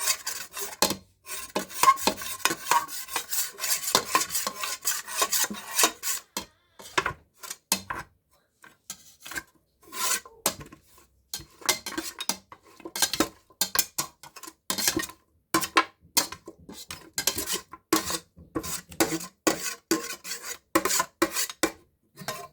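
Irregular, rough scraping strokes of a utensil working over burnt baby back ribs, with a short pause near the middle.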